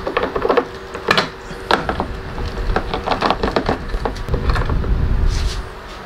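Clicks, knocks and rattles of a car's tail-light wiring harness and its rubber grommet being pushed and pulled through a hole in the rear body panel, with a duller rumble of handling near the end.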